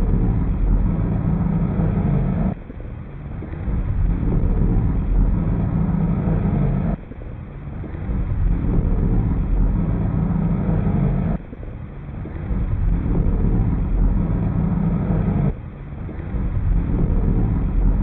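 Dark ambient guitar music: a low, rumbling distorted drone that swells up and then cuts off sharply about every four and a half seconds.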